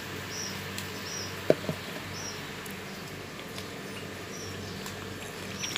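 A small bird chirping: short, high squeaky notes repeated about twice a second, in runs with pauses between. Under it a steady low hum, and a single sharp click about a second and a half in.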